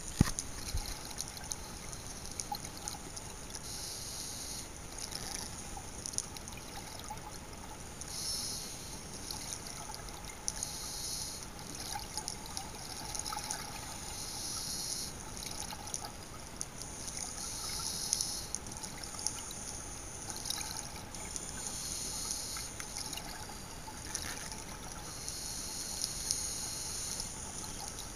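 A scuba diver's exhaled bubbles from the regulator, heard underwater: bubbling bursts every few seconds, each lasting a second or two, over a steady underwater hiss with faint crackling.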